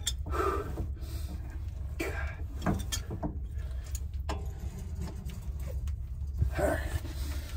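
Sharp metallic clicks and clinks of hand tools on a rusted rear brake caliper as it is worked at by hand, with a couple of brief vocal sounds of effort, over a steady low rumble.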